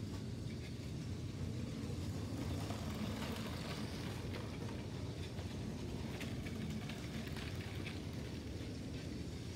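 Motorised Lego trains running on plastic track: a steady motor hum and wheel rumble, with a few faint clicks as a train passes close by.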